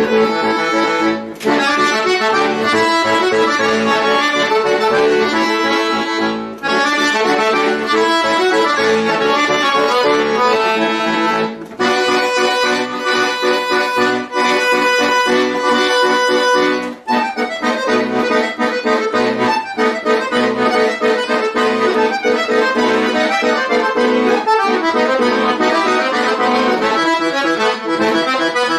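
A chromatic button accordion playing solo music: a busy passage of chords and moving notes, broken a few times by very short pauses between phrases.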